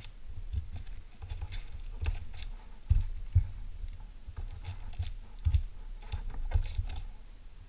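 Foil trading-card packs rustling and crinkling as they are lifted out of a cardboard hobby box and stacked on a table, with a few soft knocks as they are set down.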